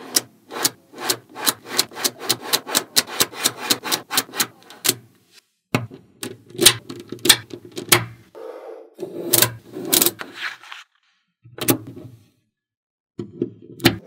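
Magnetic balls clicking as they snap onto one another, a fast run of about four clicks a second, then fewer, louder clicks with some rubbing as the balls are pushed and rolled into place.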